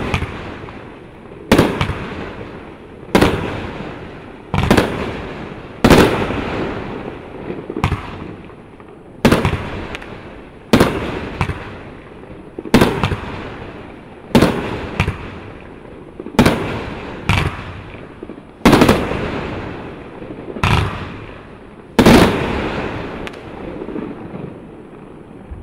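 Jail Break firework shooting a long string of aerial bursts: about sixteen loud bangs, roughly one every second and a half, each trailing off over about a second.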